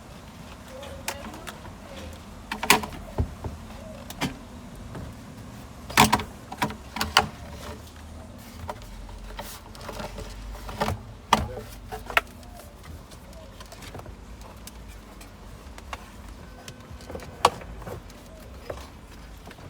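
Irregular sharp clicks and knocks of tools and parts being handled during work on a car's A/C heater housing, over a steady low hum.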